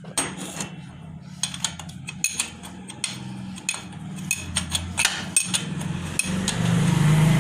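Irregular metallic clicks and knocks of a wrench and socket working on a motorcycle engine's oil drain bolt, over a steady low hum.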